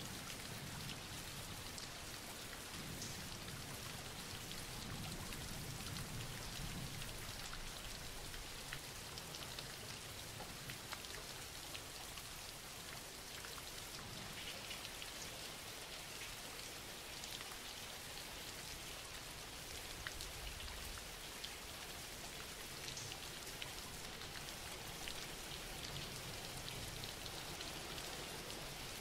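Steady rain falling, with scattered individual drops ticking through it.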